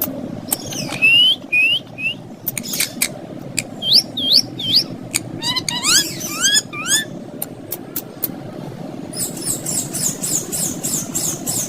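Green ringneck parrot vocalising: sharp clicks and short hooked, gliding whistles, then a fast run of high chirps at about four a second near the end. A steady low hum runs underneath.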